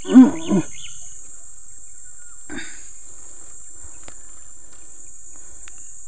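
Steady high-pitched insect chirring. It opens with a man's short loud exclamation, and a brief rustle comes about two and a half seconds in.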